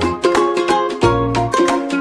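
Background music: a bright tune of quickly plucked string notes over a bass line.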